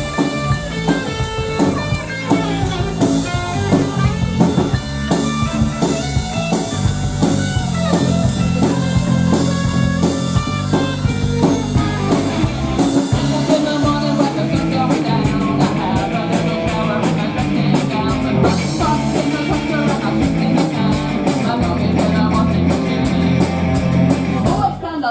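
Live rock band playing an instrumental passage: guitar, bass and drum kit with a steady beat. About halfway through, the drum pattern changes to a brighter, busier cymbal part.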